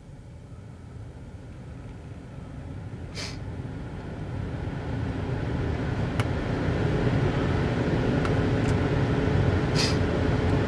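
2005 Chevy Tahoe's HVAC blower motor speeding up as the fan control is turned up, the rush of air from the vents growing steadily louder and levelling off about seven seconds in, with a faint motor whine. Two sharp clicks from the climate-control panel, about three seconds in and near the end. The blower runs properly on its newly replaced blower motor resistor.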